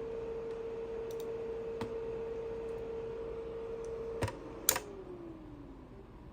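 Small cooling fan in a hard-drive docking station, running with a steady whirring hum, with a few sharp clicks. After a louder click near the end the fan's hum slides steadily down in pitch as it spins down.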